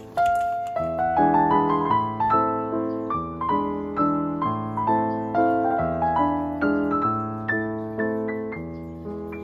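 Background piano music: a gentle melody of single struck notes, each fading away, at roughly two notes a second.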